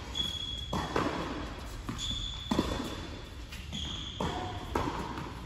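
Tennis rally on an indoor hard court: several sharp racket strikes and ball bounces that echo in a large hall, with short high squeaks of sneakers on the court between them.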